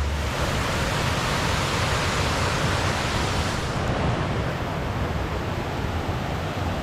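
Waterfall rushing: a steady, even hiss of falling water whose tone shifts slightly about four seconds in.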